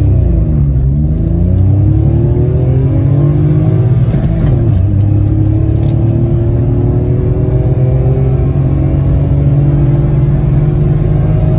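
Citroen C1's 1.0-litre three-cylinder petrol engine accelerating through the gears, heard from inside the cabin. It shifts up about half a second in and again after about four and a half seconds, and the revs climb after each change.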